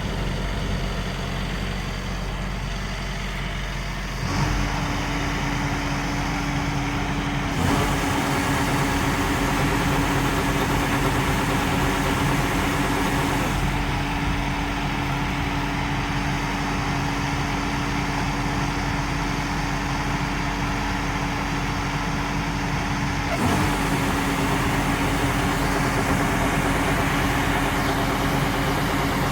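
LOVOL RG130 EVO rice combine harvester running steadily, its engine and threshing drive making a constant drone. A steady whine joins about four seconds in, and the sound shifts abruptly a few times.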